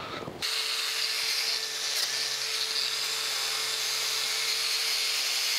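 An angle grinder with a wire wheel starts about half a second in and scrubs rust off a rusted shaft. It makes a steady hiss over an even motor tone.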